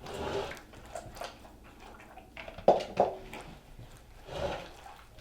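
Slime being mixed in a container, with scattered clicks and a sharp knock about two and a half seconds in.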